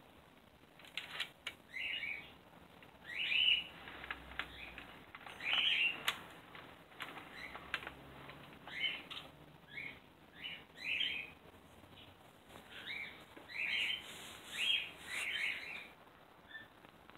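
A small bird chirping: short chirps about once a second, some in quick pairs, with faint clicks between them.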